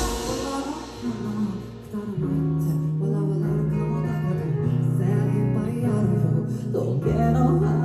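Live rock band music. The loud full-band passage falls away at the start, and guitar carries a quieter stretch. From about two seconds in, steady held notes return under the guitar.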